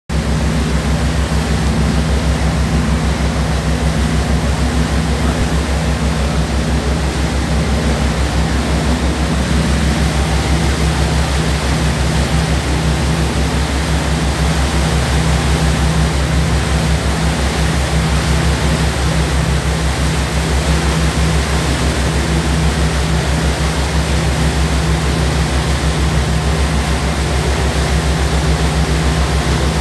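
Boat engine running steadily with a low, pulsing drone, over a constant rush of water and wind noise. One upper layer of the drone drops away about ten seconds in.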